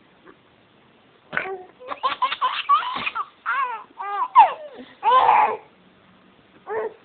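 Baby giggling and squealing with laughter in a quick run of bursts. After a pause near the end comes one more short laugh.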